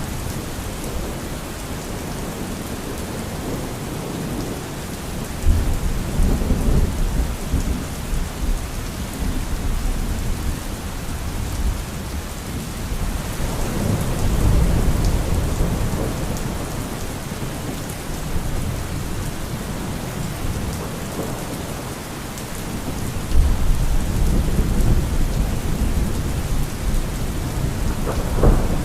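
Steady heavy rain with rolling thunder: three long low rumbles swell and fade about 5, 14 and 23 seconds in, and a sharper crack comes near the end.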